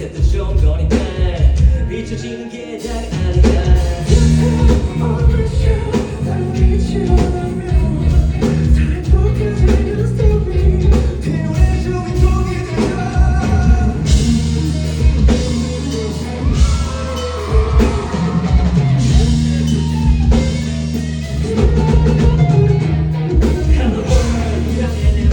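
A rock band playing live: drum kit, bass and electric guitar, with singing over them.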